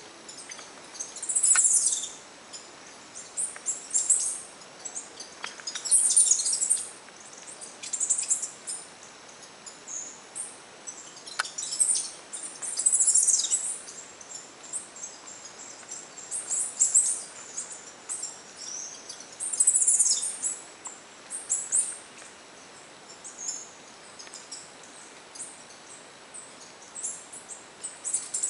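Wild birds singing: short, high-pitched phrases repeated every two seconds or so, over a faint steady background hiss.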